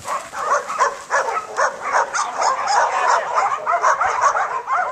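Dogs barking and yipping in quick succession, several voices overlapping, in short rising-and-falling calls a few times a second.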